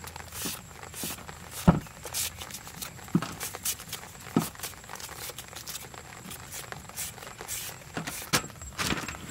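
Handheld metal slicer shaving thin slices off a peeled sweet potato: irregular short scraping strokes and light taps as slices drop onto a metal tray, with a sharper click a couple of seconds in.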